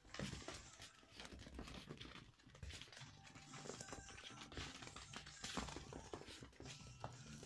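Toy poodle puppies playing on a fleece blanket over a wooden floor: soft rustling of the blanket and light, irregular scratches and taps.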